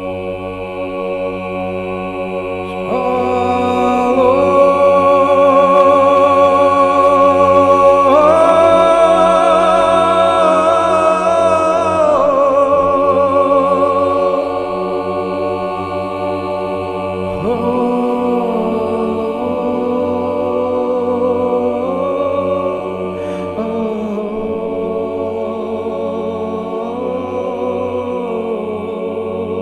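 Slow devotional chanting: long sung notes held over a steady drone, rising to the highest and loudest notes a few seconds in, then stepping down through lower held notes.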